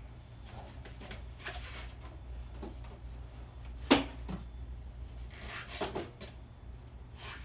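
A few light knocks and clicks of handling in a workshop, the sharpest about four seconds in and two more close together around six seconds, over a steady low hum.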